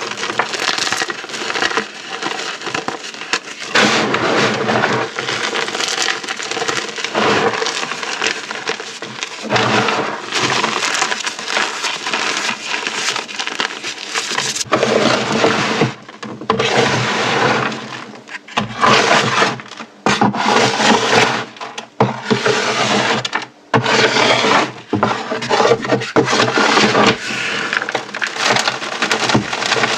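Brittle material being crushed: a dense, loud run of crunching and crackling, broken by a few short pauses in the second half.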